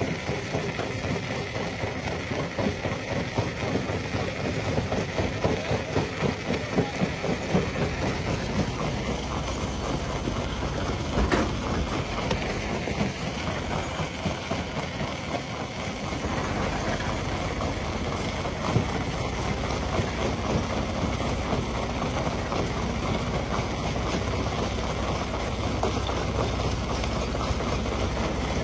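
Rock crusher running, with stones clattering and knocking as they are crushed, over a steady low machine hum that grows stronger about halfway through. One sharper knock comes near the middle.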